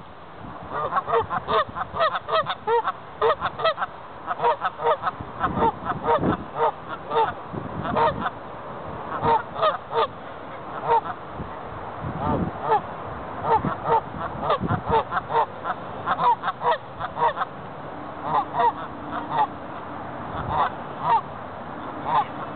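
Canada goose honking: short calls repeated over and over, often two or three a second, with few breaks.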